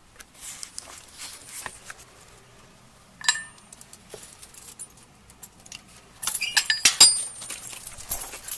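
Metal clinks and rattling from a mesh metal screen gate and its latch being worked open. A single ringing clink comes about three seconds in, and a louder burst of clanking and rattling about six to seven seconds in.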